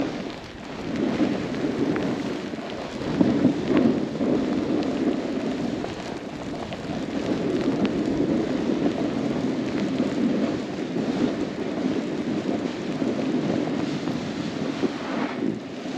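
Snowboard sliding and scraping over icy, rutted snow during a run, a continuous rough rumble that swells and eases with each turn.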